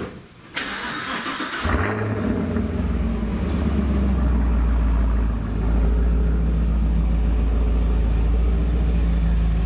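A thump, then a car engine cranks and catches about two seconds in, settling into a steady low idle.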